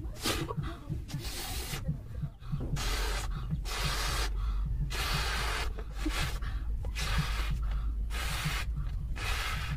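A latex party balloon being blown up by mouth: repeated short puffs of breath into it, about one a second, as it inflates.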